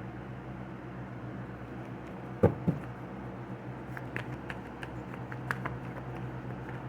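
Two sharp knocks about two and a half seconds in, then a scatter of light clicks and taps, over a steady low hum.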